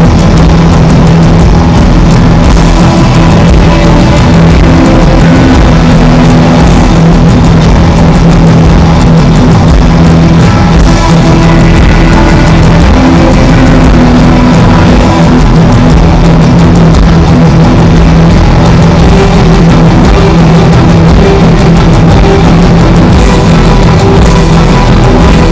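Live symphonic rock band playing loud, with electric guitars and drums, heard from the audience in an arena.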